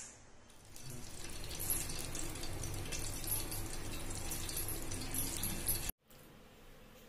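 Cooking oil being poured from a small measuring cup into a pan: a steady splashing pour that cuts off suddenly near the end.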